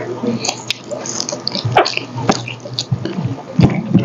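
Close-up mouth sounds of people eating roast duck with their fingers: wet chewing, lip smacks and small clicks.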